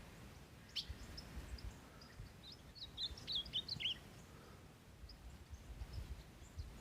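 A small bird chirping a quick run of high notes, loudest about three seconds in, with fainter scattered chirps and a low rumble underneath.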